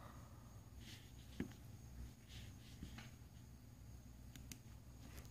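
Near silence: room tone with a low hum and a few faint clicks.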